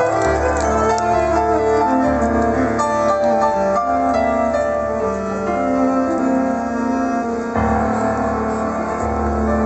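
A live band plays an instrumental passage, with piano to the fore over held chords and a bass line that changes note about every second.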